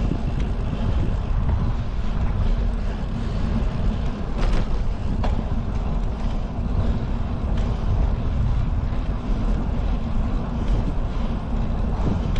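Wind buffeting the microphone of a handlebar-mounted camera while riding a bicycle, a steady low rumble, with a couple of faint clicks about halfway through.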